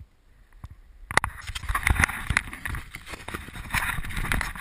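Crunching footsteps on gravel and close rustling, with many irregular sharp clicks, starting suddenly about a second in.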